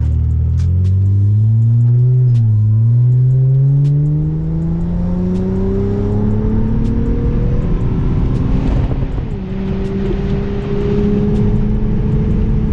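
The 2003 Acura TL Type S's 3.2-litre V6 engine accelerating with its new cold air intake fitted. The pitch climbs steadily for several seconds, drops about nine seconds in and then holds steady. It is running smoothly now, after a misfire.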